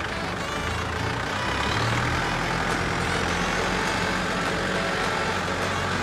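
Massey Ferguson MF4708 tractor's diesel engine running as the tractor drives. The engine note rises about a second in, then holds steady.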